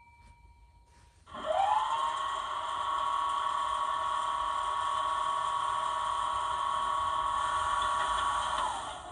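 Class 24 diesel sound project by Jamie Goodman, played by a LokSound 5 decoder through a pair of 18x13 speakers in a model locomotive. About a second in a whine rises sharply and then holds steady, and it dies away near the end as the engine sound settles toward idle, typical of the recorded start-up sequence.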